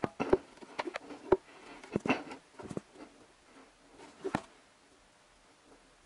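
Irregular clicks and light knocks of a hand tugging at and handling the plastic timing-belt cover of a Honda D17A engine. They come in quick, uneven groups and stop about four and a half seconds in.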